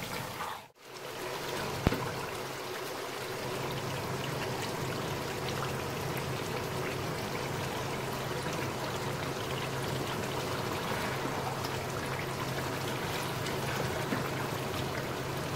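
Chicken masala in a thin yogurt gravy simmering and sizzling in a frying pan, a steady bubbling hiss. The sound drops out briefly about a second in, with a single click just after.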